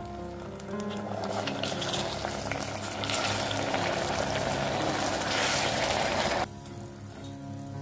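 Hot caramel boiling hard in a stainless steel saucepan, a dense hissing bubble as liquid is stirred in with a wooden spoon; the hiss cuts off suddenly about six and a half seconds in. Soft background music plays underneath.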